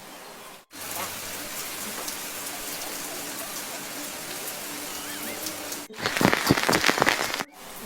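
Rain falling in a steady hiss. About six seconds in it abruptly gets louder and denser, heavy rain pattering close by, then drops back just as suddenly.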